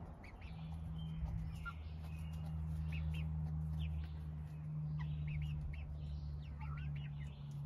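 Birds chirping and calling in short, scattered notes over a steady low hum.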